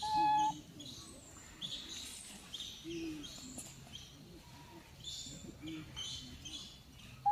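Birds chirping repeatedly in the background, short high notes again and again. Right at the start comes a louder steady whistle-like note, about half a second long.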